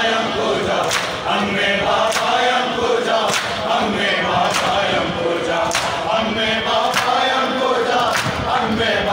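A group of men chanting a Farsi noha (Shia mourning lament) together, over the sharp strikes of matam chest-beating that fall in a steady beat a little slower than once a second.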